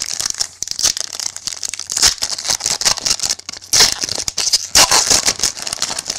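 Clear plastic trading-card pack wrapper being torn open and crumpled by hand: a loud, dense crinkling crackle full of sharp snaps.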